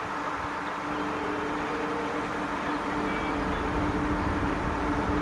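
MEMU electric multiple unit approaching slowly on electrified broad-gauge track: a steady hum over a wash of running noise, growing slightly louder as it comes closer.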